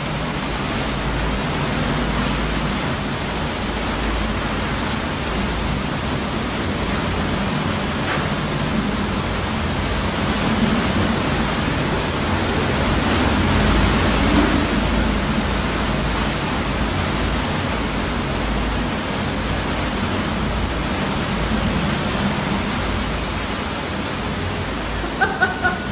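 Hurricane Irma's wind and driving rain rushing in a steady roar, swelling a little about halfway through.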